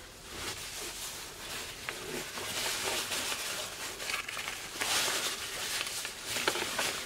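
Gore-Tex shell jacket fabric rustling and crinkling as hands smooth it and pull it open, in irregular swishes with a few light ticks.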